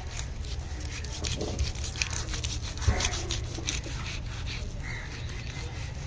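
Heavy cleaver sawing and pressing through a large seer fish just behind the head, with repeated scraping and clicking of the blade through flesh and bone against a wooden chopping block. One louder knock about three seconds in.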